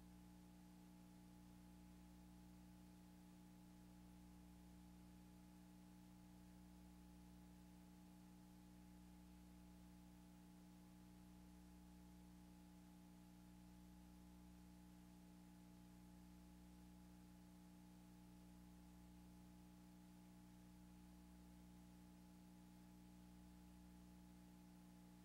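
Near silence: a faint, steady electrical hum with a few fixed tones, from playback of a blank stretch of old videotape.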